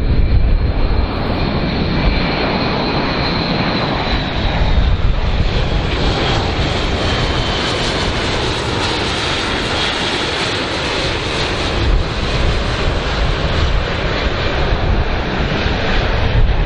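Airbus A400M Atlas turboprop engines and eight-bladed propellers running as the aircraft flies past low. There is a steady drone with a high whine that sinks slightly in pitch over the first few seconds. The hiss grows brighter toward the middle and dulls again near the end.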